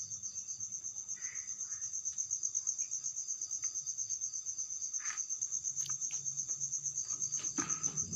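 A cricket chirping steadily: a rapid, even pulse of high-pitched notes over a faint low hum, with a couple of light knocks in the second half.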